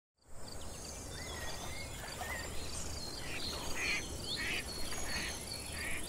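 Outdoor nature ambience: birds chirping and calling in short, gliding notes over a steady insect chorus that pulses evenly about twice a second, with a low rumble underneath.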